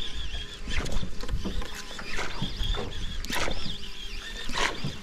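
Irregular water splashes and slaps, roughly one every half second, over a steady background rustle.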